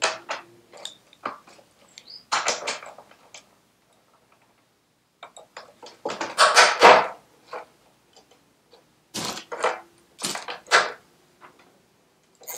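Socket ratchet clicking in several short bursts of rapid clicks, with clinks of metal sockets, as rusted nuts are worked loose.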